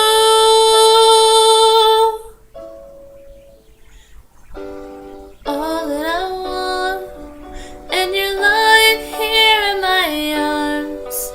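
A woman singing a pop ballad over a backing track. She holds one long note that ends about two seconds in, the music drops away briefly, then the melody carries on with no words sung.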